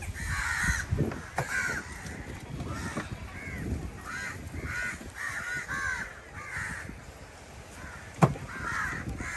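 Crows cawing over and over, many short harsh calls overlapping, from several birds. A single sharp knock about eight seconds in.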